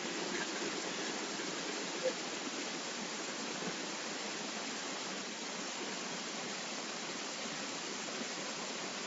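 Steady background hiss with no speech, and one short faint blip about two seconds in.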